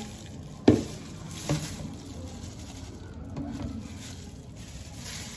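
Kitchen-sink handling as soaked sea moss is tipped from a plastic bag into a plastic colander in a stainless steel sink: a sharp knock just under a second in and a softer knock about a second in, then low rustling and shuffling.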